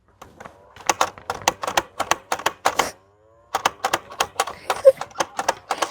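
Battery-powered toy blaster firing on automatic: rapid mechanical clicking as it cycles, in two bursts of about two seconds each with a short pause between.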